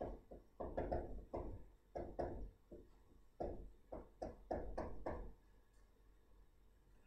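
Pen writing, heard as a quick run of irregular taps and scratches for about five seconds that then stops.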